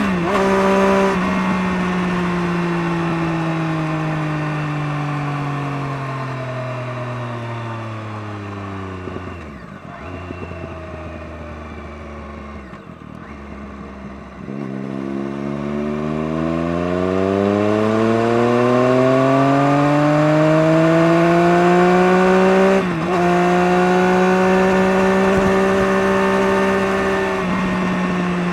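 Motorcycle engine through a Scorpion aftermarket exhaust, slowing with its note falling over several seconds, then running low for a few seconds with brief breaks. It then accelerates with the note rising, dips briefly at a gear change, and runs steady at higher revs, dipping again near the end.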